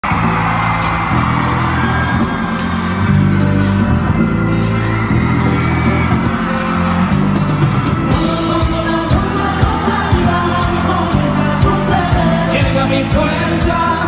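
Live band music with a regular drumbeat and deep, held bass notes, with singing and shouts over it.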